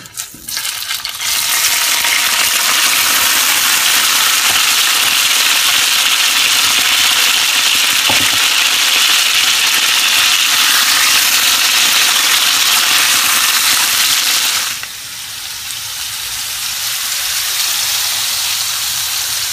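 Cubed, pre-cooked potatoes tipped into hot shallow oil in a cast iron sauteuse pan, then sizzling steadily as they fry over medium heat. The sizzle drops to a lower level about fifteen seconds in and carries on.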